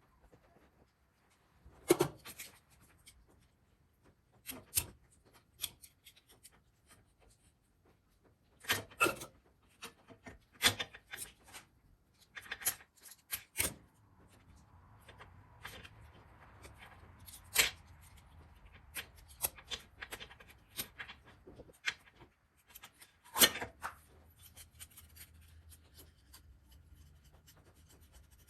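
Rubbing and scraping as an old rubber handlebar grip is cut off a motorcycle clip-on, with scattered sharp clicks and knocks from tools and metal parts being handled.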